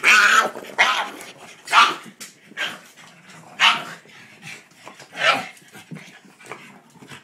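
Pug giving about six short, rough barks at irregular intervals, the noises of an excited greeting.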